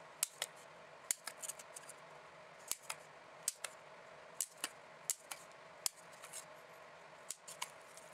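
Handheld single-hole paper punch clicking shut again and again as it punches holes through foam core binding strips: about a dozen sharp metallic clicks, several in quick pairs.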